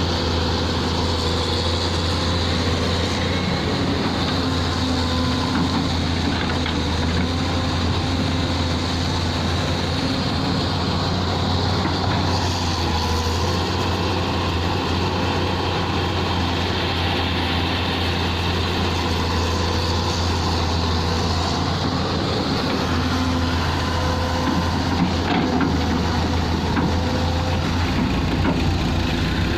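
Old dump truck engine running steadily, a constant low drone with no change in pace.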